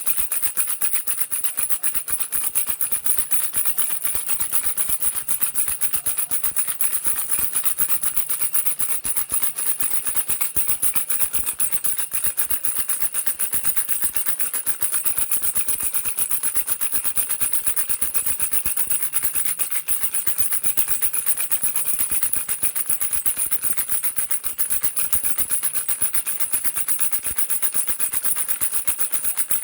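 Baby rattle shaken rapidly and without a break, a dense, even rattling of fine clicks.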